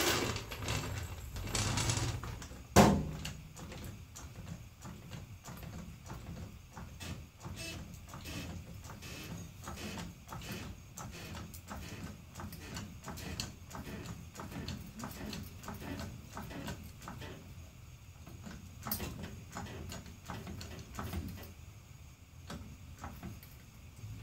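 Long-handled hydraulic floor jack being worked under the rear of a Chevy S10 pickup as it is let down onto new lowering blocks: a steady run of small metallic clicks and creaks, with one sharp clank about three seconds in.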